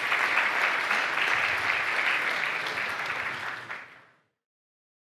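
Audience applauding, fading out about four seconds in.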